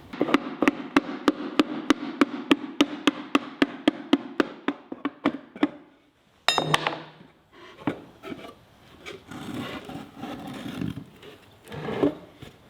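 A hammer tapping fast and evenly, about five light blows a second, knocking apart the unglued finger joints of an old wooden dynamite box. After a short pause comes one louder knock with a brief high ring, then softer scraping and handling of the loosened boards.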